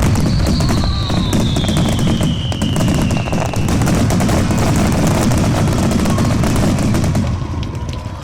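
Starmine fireworks barrage: a dense, rapid run of shell bursts and crackling over a continuous low rumble, with a whistle falling in pitch over the first three seconds. The barrage dies down near the end.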